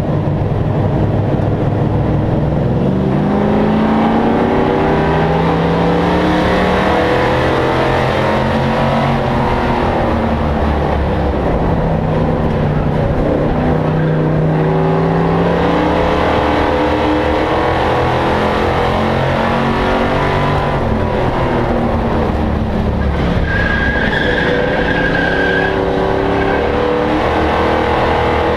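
Short-track stock race truck's engine heard from inside the cockpit, its pitch climbing as it accelerates and falling as it lifts, over and over, lap after lap. A brief high squeal comes in about two-thirds of the way through.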